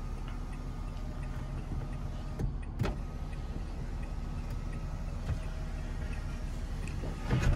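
Power sunroof of a 2017 Toyota Camry sliding open: a thin, steady electric motor whine that stops about four seconds in, with a few light clicks, over a low steady hum in the cabin.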